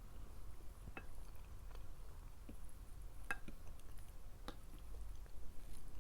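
Close-miked chewing of food, with a handful of short wet mouth clicks scattered through it.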